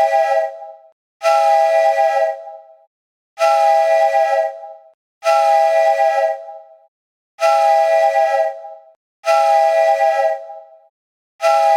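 iPhone alarm ringtone: a short chord of several steady tones sounding together, repeating about every two seconds, each ring fading out before the next begins.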